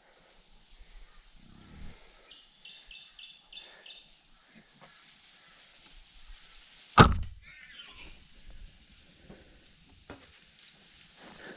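A bow shot at a feral pig: one sharp, loud crack of the bowstring and arrow about seven seconds in, the loudest thing by far. A short falling high sound follows it.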